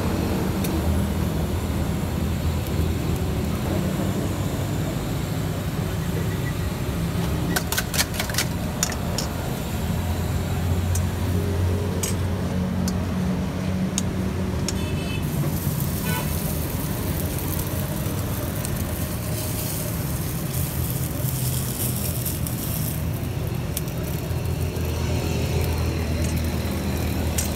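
Steady rumble of road traffic and engines, with a few sharp clicks about eight seconds in and a higher hiss that comes in about halfway and eases off later.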